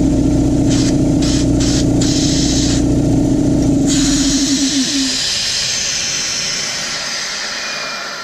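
Husky shop air compressor's electric motor and pump running with a steady hum, then switched off about four seconds in. The motor winds down over about a second, and air starts hissing out, fading away slowly.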